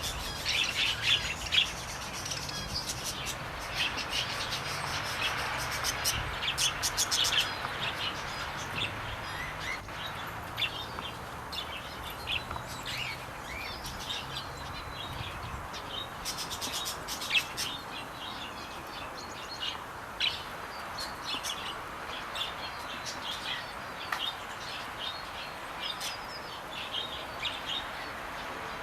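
Small birds in an aviary chirping and twittering: many short, high calls overlapping continuously, with a few sharp clicks among them.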